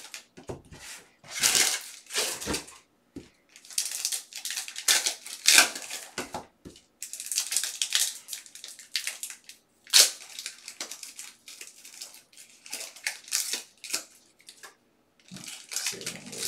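Foil wrappers of Upper Deck hockey card packs crinkling and tearing as packs are ripped open by hand, with the cards inside being handled, in a run of short rustling bursts. One sharp snap about ten seconds in.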